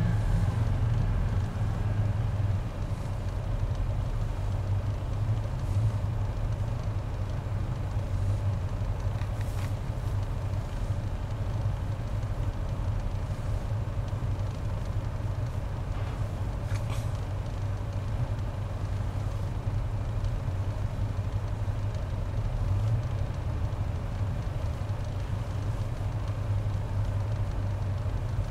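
Off-road pickup truck engines running steadily with a low rumble and no clear revving.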